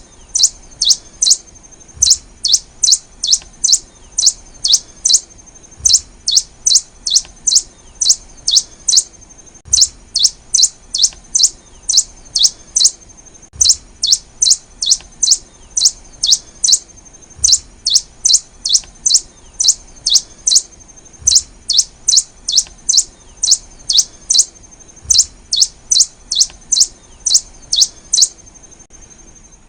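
Black-and-rufous warbling finch (Poospiza nigrorufa) calling: short, sharp, high chirps repeated rapidly in runs of several notes with brief pauses between, over a thin steady high tone.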